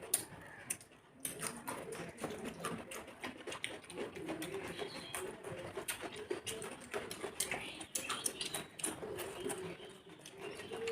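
Close mouth and hand sounds of eating rice and curry by hand: many small wet clicks and smacks of chewing. Under them runs a low wavering hum or coo.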